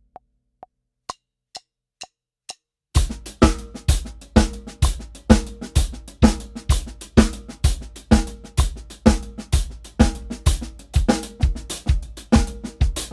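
Drum kit: after a pause, about five light clicks count off the tempo, roughly half a second apart, then about three seconds in a steady groove starts on bass drum, snare and hi-hat at 128 BPM.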